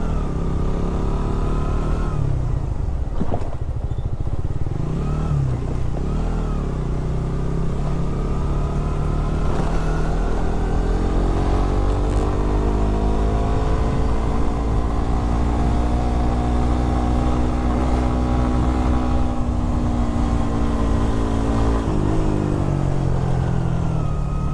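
Suzuki GSX Bandit 150 single-cylinder motorcycle engine running under way. Its pitch drops and picks up again several times in the first few seconds with gear changes, then rises slowly, holds and sinks back before another shift near the end. A heavy low rumble runs under it.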